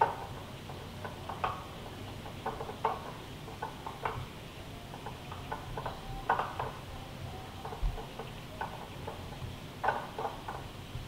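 Irregular light clicks and taps of hard plastic figure parts being handled and fitted together, with the magnetic joints clicking into place; the loudest clusters come about six seconds in and near the end.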